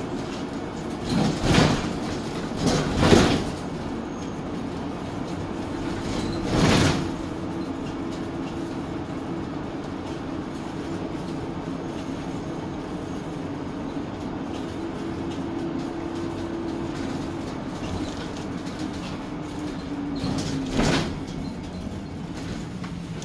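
Inside a 2018 Arboc Spirit of Freedom shuttle bus under way: steady drone of its GM Vortec 6.0 L V8 engine and road noise. It is broken by loud, short body rattles and jolts about 1.5, 3 and 7 seconds in and once more near the end, as the shuttle goes over bumps.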